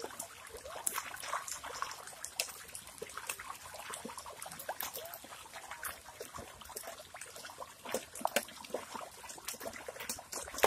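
Wet mud and shallow water worked by hand: irregular squelching, sucking and small splashing, with drips and trickles of water.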